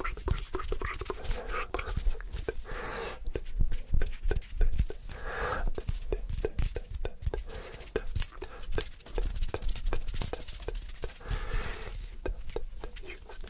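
Close-miked ASMR hand sounds: rapid crisp taps, clicks and rubs, broken by short bursts of unintelligible whispering.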